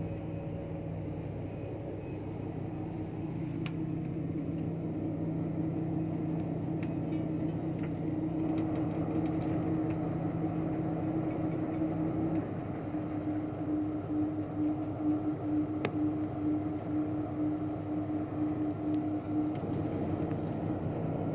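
Steady hum of running machinery with two low tones. About twelve seconds in, the lower tone drops out and the sound begins to waver. A few faint clicks.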